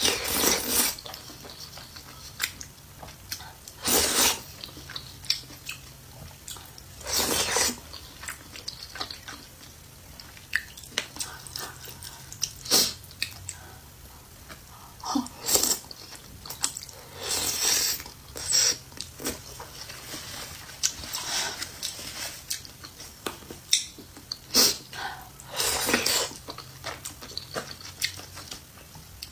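Close-miked eating: irregular bites and wet chewing noises, with louder mouth sounds every second or few.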